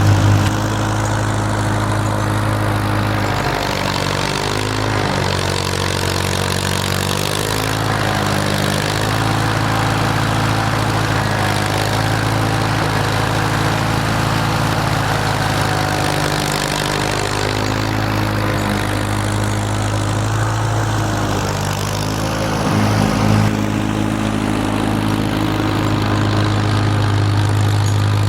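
Farmall M tractor's four-cylinder engine running steadily, its pitch dipping and recovering a few times as it works under varying load.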